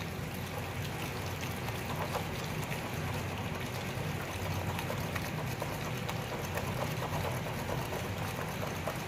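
Wire whisk beating ghee and powdered sugar in a glass bowl: a steady run of quick scraping and light clicking of the wires against the glass as the mixture is creamed smooth.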